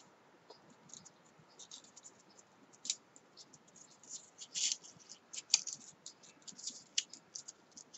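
Paper flower petals rustling and crinkling as fingers pinch and press them into place: faint, irregular scratchy ticks, some grouped in short flurries.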